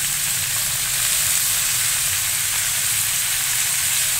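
Mung bean sprouts sautéing in a hot wok, a steady sizzle of frying.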